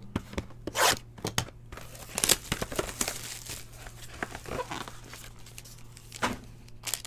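A trading card box being torn open by hand and its foil-wrapped card pack crinkling as it is lifted out and handled. It is a run of sharp tearing and crinkling noises, loudest about a second in.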